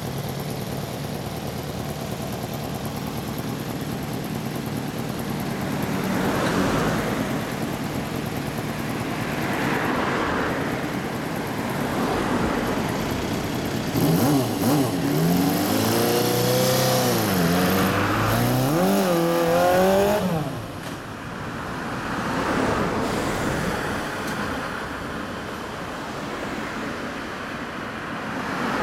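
A 1981 Suzuki GS250FW's 250cc inline-four with a Yoshimura exhaust, idling and then revved in a series of blips about halfway through, the pitch climbing and falling several times. Road traffic passes in the background and takes over near the end.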